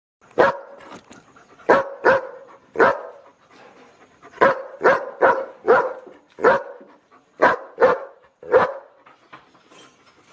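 A dog barking: about a dozen sharp barks in uneven bursts of two or three, with a few fainter barks near the end.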